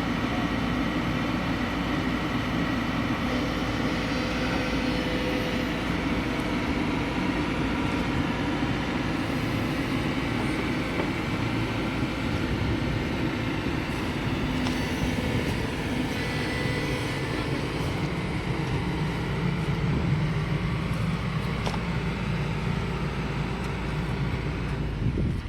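Kobelco SK220 excavator's diesel engine running steadily under work, a little louder around twenty seconds in.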